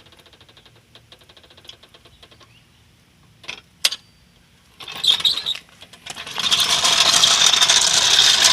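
Ratchet wrench working the lug nuts: quiet rapid clicking, a couple of sharper clicks, then a loud, fast, continuous ratcheting from about six seconds in.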